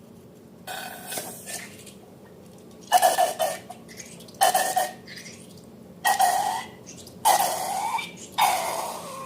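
Slime being worked and squeezed, making about six short wet squelches roughly a second apart.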